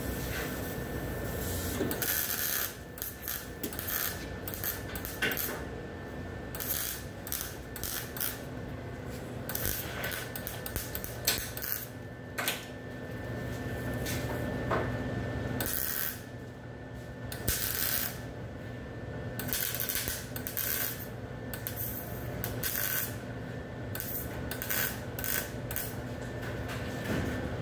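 Small wire-feed (MIG) welder running .023 wire, laying short stitch welds on a rusted steel body panel: a crackling sizzle in short bursts of under a second, coming about once a second with brief pauses between.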